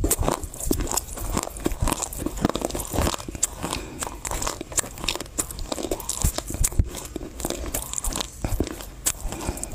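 Close-miked chewing of a mouthful of Chinese loess clay: many irregular crunches.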